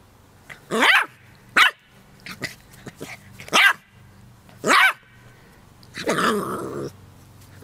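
A puppy barking in short, high barks: about five loud ones with smaller yips between them, and a longer, rougher bark with a growl in it about six seconds in.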